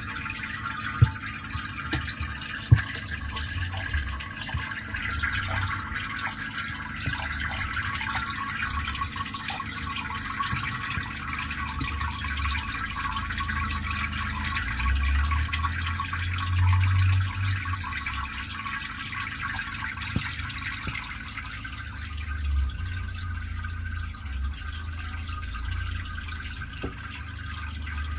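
Aquarium filter return splashing and trickling steadily into a turtle tank. Under it runs a low rumble, and two light knocks come in the first few seconds.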